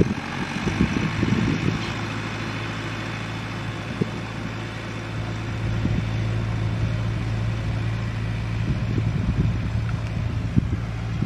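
Fendt 510C tractor's diesel engine running steadily under load as it pulls a seed drill across the field.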